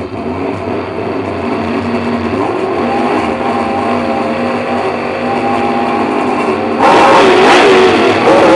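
Superstock speedway car's V8 engine heard from inside the cockpit, running at a fast idle with small throttle blips, then revving hard about seven seconds in as the car pulls away at the start.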